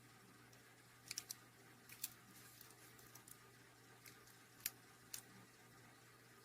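Near silence broken by a few faint, short clicks: three close together about a second in, one at about two seconds, and two more around five seconds.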